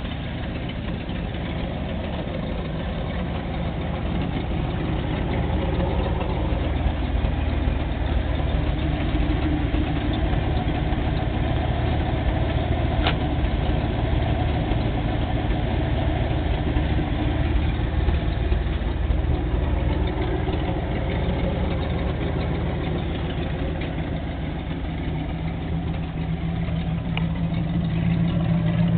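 Ford pickup truck's engine idling steadily, a low continuous rumble.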